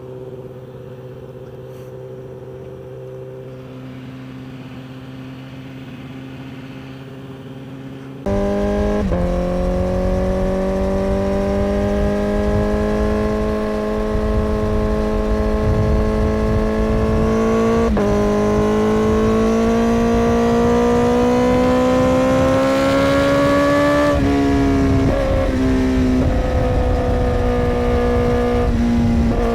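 2017 Honda CBR1000RR SP1's inline-four through a Yoshimura slip-on exhaust, first running steadily at low revs. About eight seconds in it suddenly gets much louder as the bike is ridden, the engine note climbing slowly and dropping sharply at each of several upshifts.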